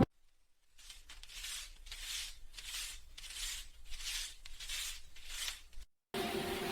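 Paper banknotes being handled close to the microphone: about eight crisp, papery swishes, one roughly every 0.6 s, like bills being counted off one at a time.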